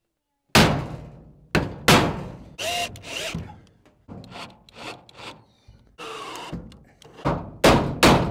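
Hammer tapping the heads of non-self-tapping screws to start them through a solid oak plank and into steel sheet-metal siding: a string of sharp knocks, several in quick succession near the end. A cordless drill runs briefly between the taps, driving the screws in.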